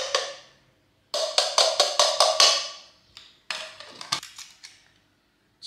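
A spice container knocked repeatedly to shake out spice: quick, hollow, ringing knocks, one at the start, then two runs of about five knocks a second.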